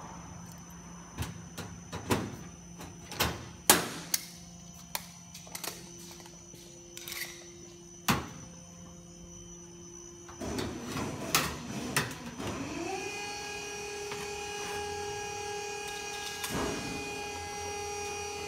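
A hand pop-rivet gun working on steel roof flashing: a string of sharp clicks and snaps, the loudest about four seconds in. After about twelve seconds a steady machine hum with a whine comes in and holds.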